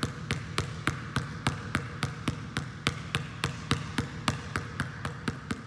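Basketball being pound-dribbled hard with one hand on a gym floor, a steady run of sharp bounces at about four a second.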